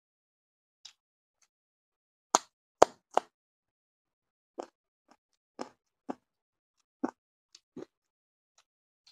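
Close-miked eating sounds from eating fish and rice by hand: a series of short, wet smacks and clicks. The three loudest come in quick succession about two and a half seconds in, followed by scattered fainter ones.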